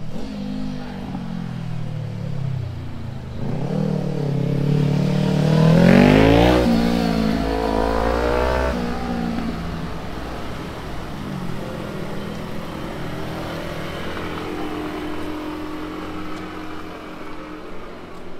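A motor vehicle's engine accelerating as it passes close by, rising in pitch, loudest about six seconds in, then fading away; a fainter engine hum follows near the end.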